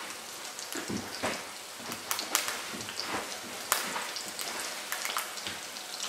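Flipped eggs frying in bacon grease in an electric skillet: a steady sizzle dotted with sharp pops and crackles of the hot fat.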